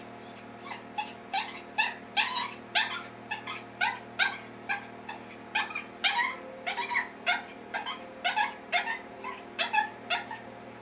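West Highland white terrier barking in short, high yips, about two a second, each with a quick upward pitch, while she is shut in a wire pen and trying to climb out.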